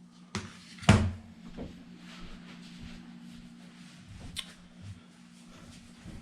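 A few sharp knocks and clunks from the all-in-one computer being handled and set back in place; the loudest comes about a second in, with another about four seconds in. A steady low hum runs underneath.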